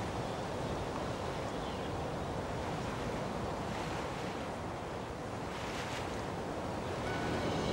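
Steady rush of wind and sea water heard from a ship's deck. Music begins to fade in near the end.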